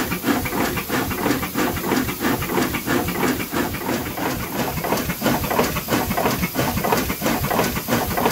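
Ward three-cylinder radial triple-expansion steam engine running steadily, a rapid even beat under a constant hiss of steam.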